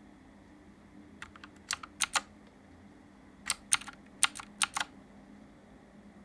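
Keys on an AJAZZ K870T mechanical keyboard with clicky blue switches being pressed in two short runs of about six sharp clicks each, with a pause between. This is key presses cycling the RGB backlight effects.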